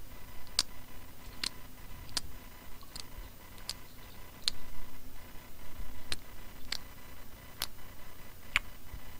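Close-miked chewing of pizza, heard as sharp, wet mouth clicks about once every three-quarters of a second to a second.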